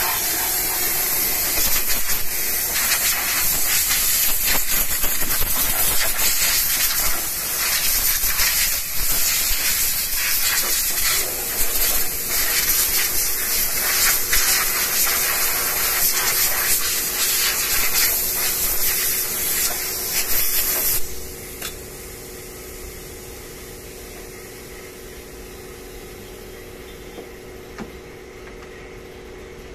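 Compressed-air blow gun on a coiled air hose hissing as it blows air through a car's engine bay, its strength varying as the nozzle moves. The blast cuts off suddenly after about twenty seconds, leaving a faint steady hum.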